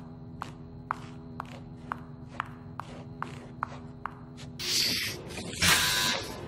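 Shoe footsteps clicking on a hard, polished floor at a steady walking pace, about two steps a second, over a low steady hum. Near the end the steps give way to two rushes of noise, the second louder.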